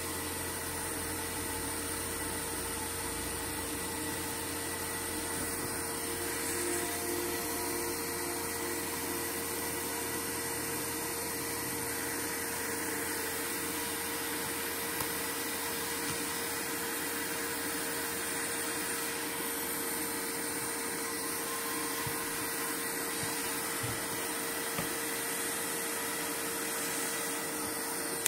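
Hot air rework gun blowing steadily: a constant airy rush with a faint steady hum.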